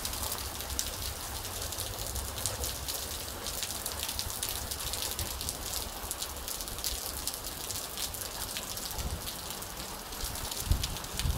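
Heavy thundershower rain pouring steadily onto asphalt and grass, with the sharp patter of close drops. A few low thumps near the end, the loudest about two-thirds of a second before the end.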